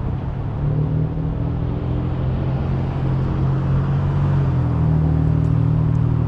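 A motor vehicle's engine running close by: a steady low hum over street traffic noise, getting a little louder about a second in.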